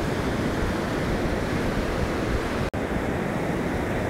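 Ocean surf breaking and washing up the beach, with wind on the microphone; the sound drops out for an instant about two and a half seconds in.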